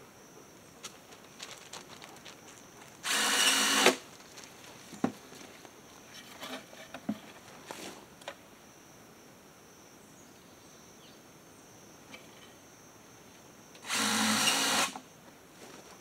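Cordless drill running in two short bursts of about a second each, about three seconds in and again near the end, driving screws to join downspout sections, with light knocks and handling of the parts in between.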